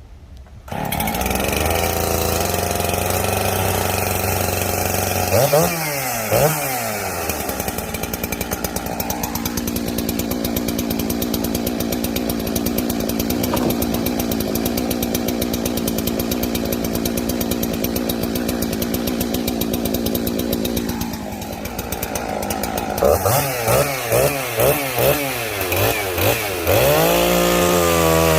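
Two-stroke chainsaw catching about a second in and idling, revved twice, then held at a steady high speed for about twelve seconds while cutting through sweet gum logs. Near the end the engine drops back, is blipped several times and opened up to full speed again.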